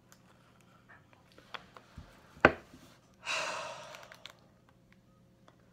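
A person breathing in the scent of two candles held together: one long, breathy breath lasting about a second, starting a little after three seconds in. Just before it there is a single sharp click, the loudest sound here, with a few faint ticks around it.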